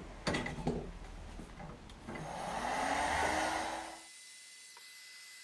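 A few knocks, then an electric heat gun's blower starts about two seconds in: a rush of air with a motor whine that rises in pitch, running for about two seconds before dropping away sharply, leaving a faint steady hiss and a thin high tone.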